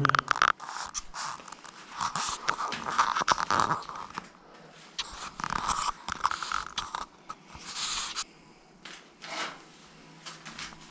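Irregular scuffing, rustling and clicking in loose bursts: clog-shod footsteps shuffling on a concrete floor.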